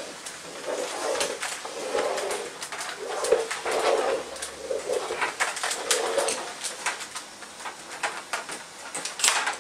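Hoover steam mop running while it is pushed over the floor. A low pulse repeats a little faster than once a second over a steady hiss, with scattered small clicks.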